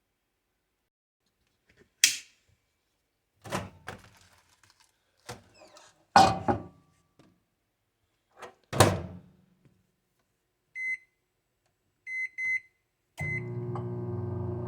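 A microwave oven being loaded and started: several sharp clunks and knocks, a run of short keypad beeps, then the oven's steady running hum starting near the end.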